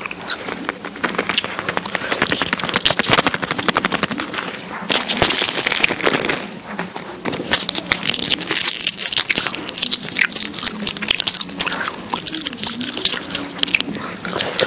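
Gum being chewed up close: rapid wet clicks and crackles of the mouth working the gum. About five seconds in there is a burst of scratchy, hissy noise lasting over a second.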